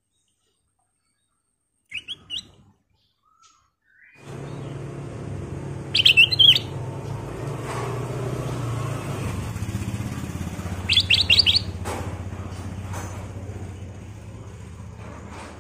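Kutilang emas (ruby-throated bulbul) calling: two short chirps about 2 s in, then two loud quick runs of high notes, one about 6 s in and one about 11 s in. From about 4 s in, a steady low rumble, like an engine running, lies under the calls.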